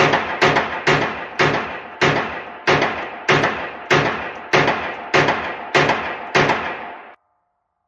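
Glock 19X 9mm pistol fired in a steady string of about a dozen shots, roughly one every half second or so, each shot ringing off the walls of an indoor range. The firing stops about seven seconds in.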